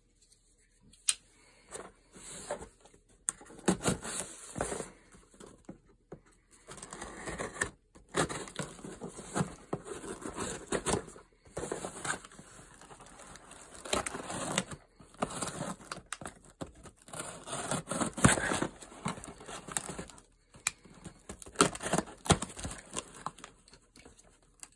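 Cardboard shipping box being handled and opened by hand: irregular scraping, rustling and crinkling of cardboard and plastic packing tape, with clicks and a few short pauses.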